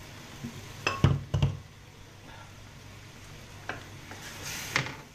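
A wooden spatula knocking against a wok a few times about a second in, over a faint sizzle of chilli paste frying in oil. Near the end comes a sharp, breathy intake of breath just before a sneeze.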